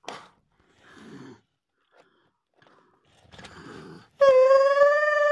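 A person voicing a toy animal: soft breathy mouth noises, then about four seconds in a loud, high, steady animal-like call held for well over a second.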